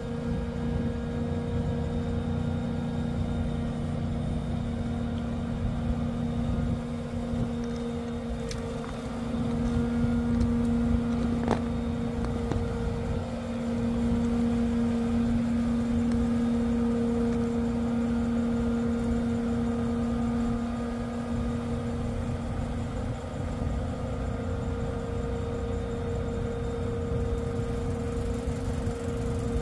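Diesel engine of a 110-ton truck-mounted crane running steadily under hydraulic load, with a steady two-note hum over the rumble, as the crane hoists and swings a 10,000 lb breaker. It grows louder about ten seconds in and again about fourteen seconds in.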